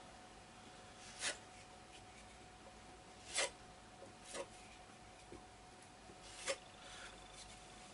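Filling knife scraping plaster filler over a wall in about four short, separate strokes, with a faint steady hum underneath.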